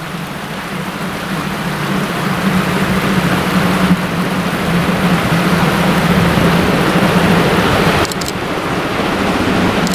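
DR class 50.35 2-10-0 steam locomotive 50 3648 working hard up a steep grade as it approaches, its exhaust and running noise growing gradually louder. Underneath is a steady rush of water from the river beside the line.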